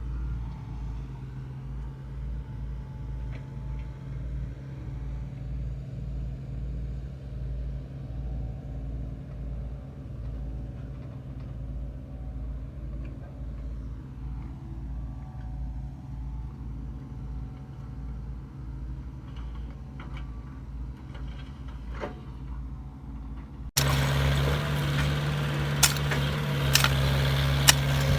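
Road-construction machine's engine running steadily with a low, even throb. About 24 seconds in, an abrupt cut brings a louder engine sound with sharp metallic clanks over it.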